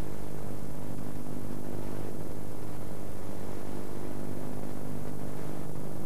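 Steady low hum made of several held tones, under an even layer of hiss, unchanging throughout.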